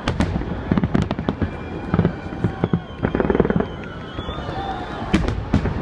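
Fireworks display: aerial shells bursting in a rapid, irregular series of sharp bangs, some overlapping, with a denser cluster of bursts around the middle.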